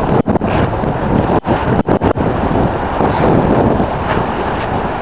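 Heavy wind buffeting the microphone aboard a small sailing yacht under way, over the rush of the sea along the hull. The sound cuts out for an instant several times in the first two seconds.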